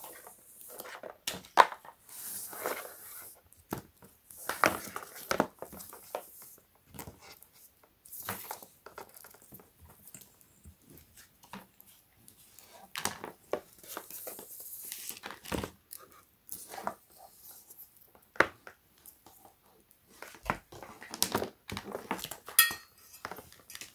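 Flexible LED light strips and their plastic-backed reels rustling and crinkling as they are handled and laid out, with irregular clicks and taps; the sharpest taps come about a second and a half in and near the end.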